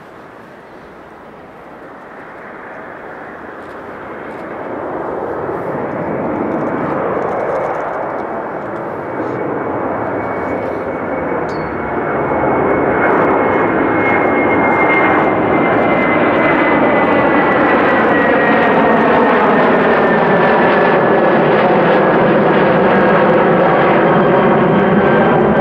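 Airbus A330-302's twin General Electric CF6 turbofans at climb power, their roar growing louder as the airliner climbs toward and over the listener, then holding loud. In the second half a high whine slowly drops in pitch as the aircraft passes over.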